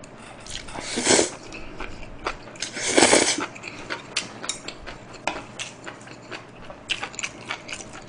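A person eating close to the microphone: two noisy slurps, about a second and three seconds in, as stir-fried seaweed stems are drawn into the mouth, then wet chewing with many small mouth clicks.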